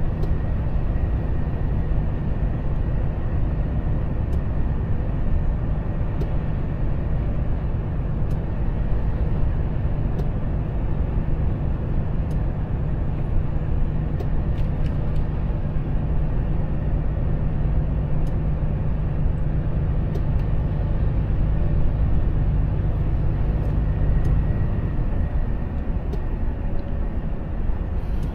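Volvo FH truck driving on a wet road, heard inside the cab: a steady low drone of the diesel engine and tyres on wet tarmac, with a few faint ticks. The low drone eases near the end as the truck slows.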